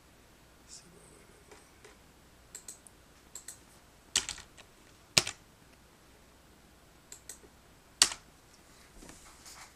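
Computer keyboard typing in scattered, irregular keystrokes, with three sharper, louder key strikes about four, five and eight seconds in.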